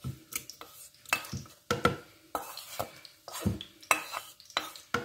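Wooden spatula scraping and knocking against a frying pan as cooked tomato sauce is scraped out into a plastic jug: a series of uneven taps and scrapes.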